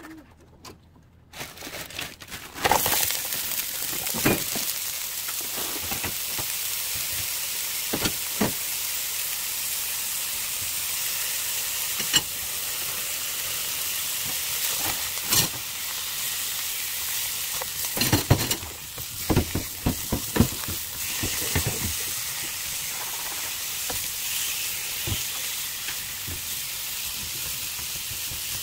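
Sliced pork belly sizzling in a hot nonstick frying pan: a steady hiss that starts suddenly about two and a half seconds in. Scattered taps and scrapes of a spatula turning the meat are thickest around two-thirds of the way through.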